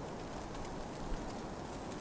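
Blizzard wind blowing steadily, with a campfire crackling in faint small pops and one low thump about a second in.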